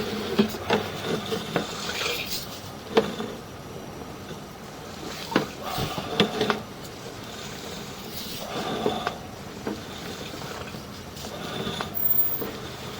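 Sewer inspection camera's push cable being fed through an old cast iron drain line, with scattered clicks and knocks and a rough scraping as the camera head rubs along the pipe.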